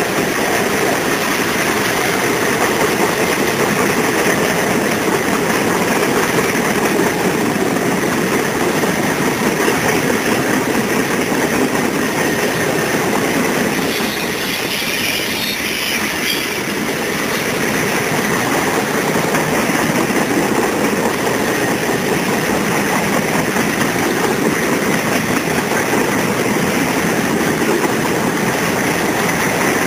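Freight cars of a passing train rolling by at trackside: steady noise of steel wheels running on the rails, dipping briefly about halfway through.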